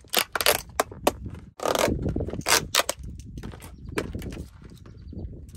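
Thin clear plastic clamshell container being pried open, its lid crackling and snapping in a quick irregular run of sharp clicks and crinkles, loudest about two and a half seconds in.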